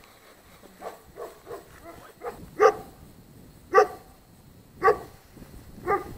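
Dogs barking: several fainter barks in the first couple of seconds, then louder single barks about once a second.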